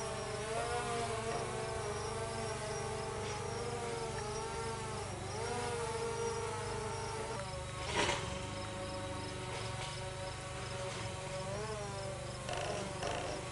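DJI Phantom 4 quadcopter hovering close by, its four propellers giving a steady buzzing whine of several tones that waver and dip in pitch as the motors adjust thrust. There is a brief thump about eight seconds in.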